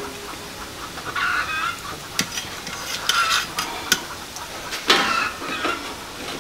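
Long metal spoon stirring and scraping in a large stainless steel stock pot of steaming fish broth, with a few sharp clinks of metal on the pot.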